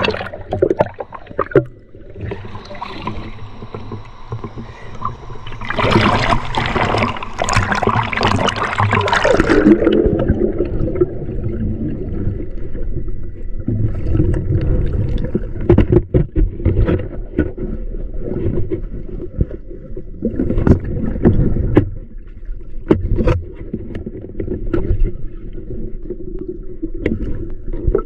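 River water splashing and gurgling. About six seconds in there are a few seconds of heavier splashing, then a low churning rumble with scattered knocks.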